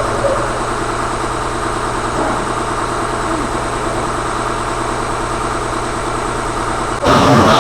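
A steady mechanical drone with a low hum, from a machine running in the shop. Near the end, louder guitar music cuts in suddenly.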